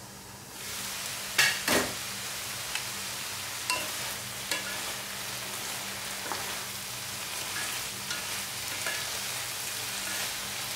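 Ground beef and bitter melon sizzling in a non-stick wok. The sizzle swells under a second in, and two loud knocks follow about a second and a half in as the glass lid comes off. Then two wooden spatulas stir and toss the mixture, with scattered scrapes and taps against the pan over a steady sizzle.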